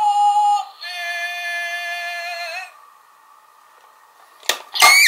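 Zyuoh Changer toy phone's speaker playing two held electronic notes, the second lower and longer, then two sharp clicks near the end as its hinged body is turned, the second loud and starting a sweeping sound effect.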